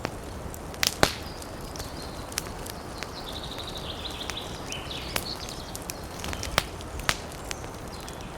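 Wood fire crackling: scattered sharp pops, the loudest about a second in, over a steady hiss. A brief high, rapid chattering call comes about three to five seconds in.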